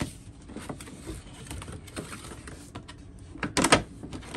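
Cardboard packaging being handled: a corrugated cardboard insert sliding and scraping out of a plastic-windowed figure box, with small clicks and rustles. A louder quick run of scraping clicks comes about three and a half seconds in.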